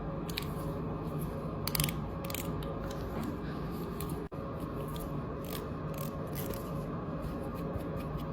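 Bangles and rings clicking and clinking against each other in quick, irregular bright clicks, over a steady low hum.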